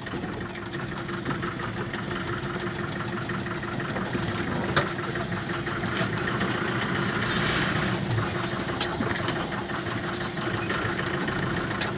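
Vehicle running slowly through a toll lane, its steady engine hum and road noise heard from inside, with a hiss that swells a few seconds before the end and a couple of brief clicks.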